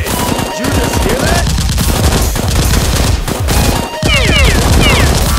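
Rapid automatic gunfire sound effects, long bursts of shots laid over a foam-blaster fight, with music underneath.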